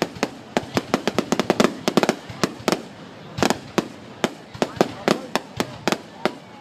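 Fireworks going off in a rapid, irregular string of sharp bangs and cracks, densest over the first few seconds and then more spaced out.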